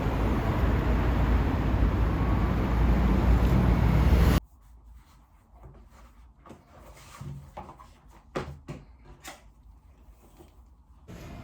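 Loud rumbling wind-like noise on the microphone that cuts off abruptly about four seconds in. A quiet room follows, with a scattering of small clicks and knocks like objects being handled.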